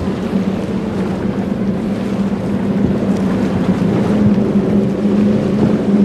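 Cigarette offshore powerboats with Mercury Racing 1350 supercharged V8 engines running at speed through rough inlet water. A steady deep engine drone over water and wind noise, growing louder toward the end.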